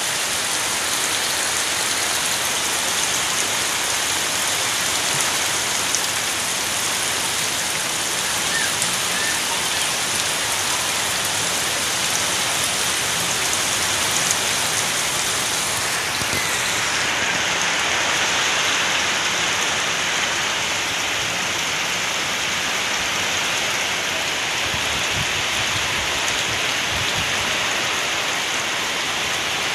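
Heavy typhoon rain pouring steadily onto leaves and a thatched roof, a dense unbroken hiss. Its tone shifts slightly about halfway through.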